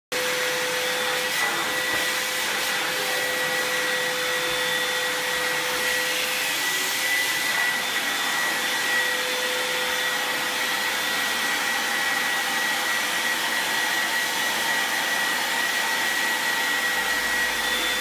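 Canister vacuum cleaner running steadily, its motor giving a constant whine over the rush of air as the hose works along a hardwood floor.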